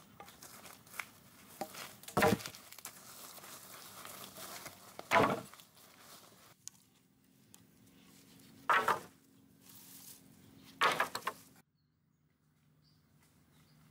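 Four heavy blows of a tool chopping into wood, a few seconds apart, with faint rustling between them.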